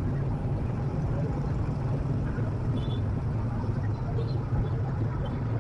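Steady low rumble with no clear events, with faint voices in the background.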